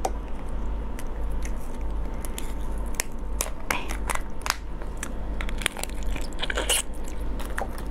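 A large crab being pulled apart by hand, its top shell prised off, giving a scattered run of sharp cracks and crunches of shell, with biting at the shell near the end.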